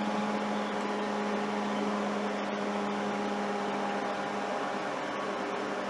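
SIKA TP Premium temperature calibrator running as it cools down, a steady fan-like hum with a low drone.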